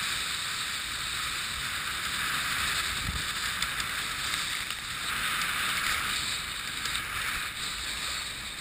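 Tornado catamaran's hull racing through choppy water: a steady rush of water and spray, with a brief low thud about three seconds in.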